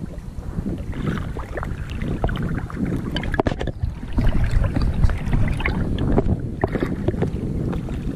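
Wind rumbling on an action camera's microphone at the water's surface, with small waves lapping and splashing irregularly around bare feet in the sea.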